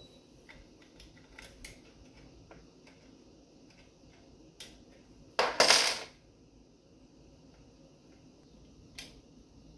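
Small metal engine parts and fasteners clicking and clinking as they are handled and fitted by hand, with one loud metallic clatter lasting just under a second about halfway through.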